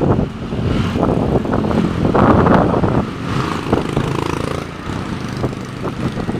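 Strong gusting wind buffeting the microphone: a loud, irregular low rumble that swells and dips from gust to gust.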